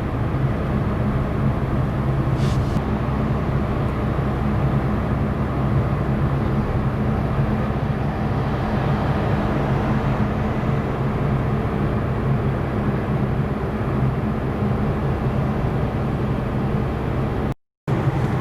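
Cabin noise inside a moving Mazda with a 2.0 petrol engine held at a steady 2000 rpm in third gear: a constant engine drone mixed with road and tyre noise. The sound cuts out for a moment near the end.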